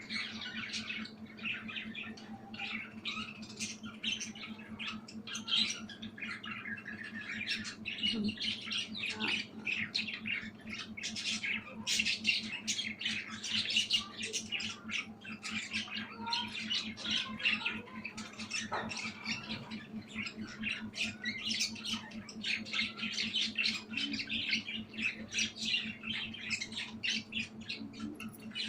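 Budgerigar chatter: a dense, continuous stream of rapid chirps and squawks, over a steady low hum.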